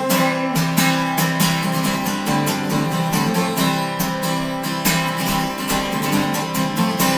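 Acoustic guitar strumming chords in a steady rhythm: the instrumental outro of the song, with no singing.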